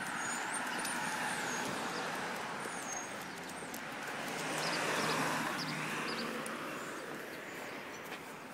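A car drives past, its noise swelling to a peak about halfway through and then fading, while birds chirp in short high whistles in the first few seconds.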